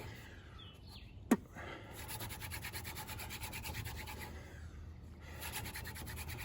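Horseweed hand-drill spindle spun fast between the palms on a hard wooden fireboard: a rapid, rhythmic scratchy rubbing that breaks off briefly twice. The board is too hard for the drill and is giving smoke and dark dust. About a second in, a short sharp squeak falls quickly in pitch and is the loudest sound.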